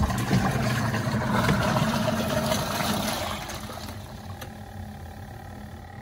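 Compact twin-tub washing machine's wash motor running on its soft wash setting, the pulsator churning the water with a low hum; about three and a half seconds in it drops to a quieter hum.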